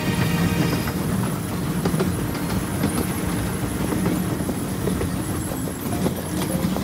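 Wulai sightseeing trolley, a small narrow-gauge tourist train, running along its track: a steady rolling rumble of wheels on rail with occasional short clicks.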